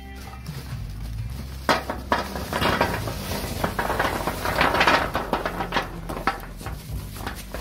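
Charcoal briquettes dropped by hand onto a pile, clattering against each other. There are a couple of single knocks, then a dense run of clatter in the middle, then scattered knocks.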